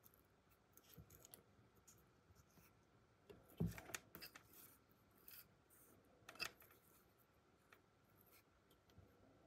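Faint rustling and clicking as fingers handle the wires, fibreglass insulation sleeves and thermal fuse on a small electric motor's coil, with a louder knock about three and a half seconds in and a sharper click a few seconds later.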